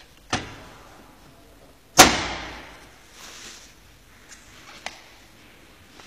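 Door of a Hoover DeLuxe D6042 tumble dryer being pushed shut: a knock about a third of a second in, then a louder slam about two seconds in that rings on briefly. A few faint clicks follow.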